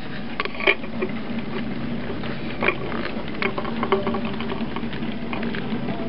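Model Black 5 steam locomotive hauling loaded coal wagons along model railway track: a steady motor hum under irregular clicking and rattling of wheels over the rails and joints, with a few sharper clicks.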